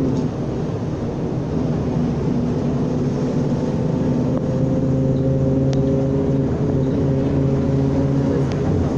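Mercedes-Benz O500U city bus's diesel engine running under way, its pitch rising gently a few seconds in and then holding steady.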